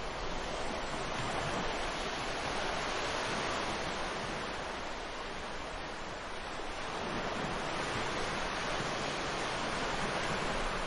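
Ocean surf: a steady rushing wash of waves that swells and eases slowly over several seconds.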